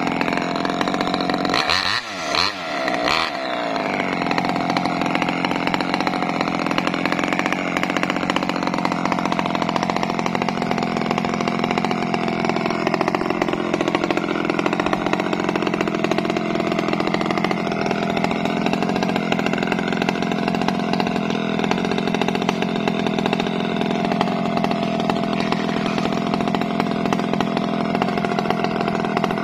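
Two-stroke chainsaw engine revving briefly about two seconds in, then running steadily at an even speed.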